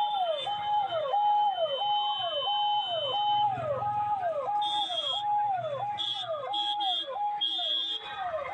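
Ambulance electronic siren wailing in a repeating cycle, a held tone that drops in pitch about twice a second. Short high beeps sound over it several times in the second half.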